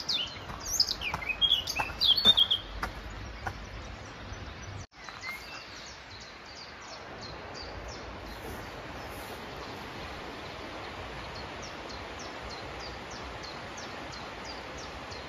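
Birdsong: loud chirping with quick rising and falling notes for the first couple of seconds. After a brief dropout, a bird repeats a short high note about twice a second over a steady hiss.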